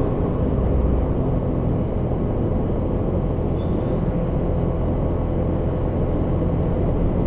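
Steady rumble of a motorcycle being ridden at an even speed, with wind noise on the microphone. The sound is low-pitched and stays the same level throughout.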